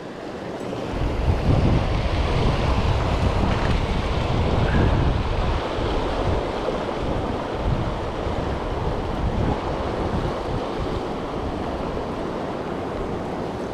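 Fast river water rushing over rocks, with wind buffeting the microphone in a low rumble that builds about half a second in and eases off toward the end.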